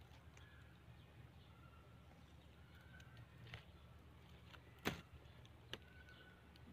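Near silence outdoors, with a few faint short bird chirps and two sharp clicks about five seconds in, the first the louder.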